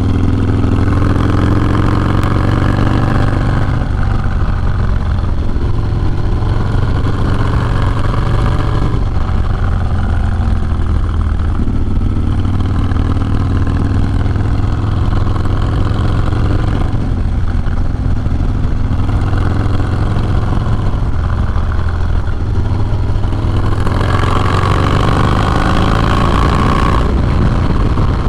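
Harley-Davidson FXDLS Low Rider S 110 cubic-inch V-twin, heard through a Sawicki Speed 2-into-1 exhaust, running on the road. The engine note rises and drops back several times as the bike accelerates and shifts.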